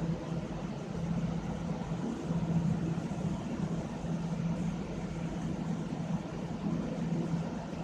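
Steady low mechanical hum with a droning low tone that wavers a little in strength, from a running motor or machine.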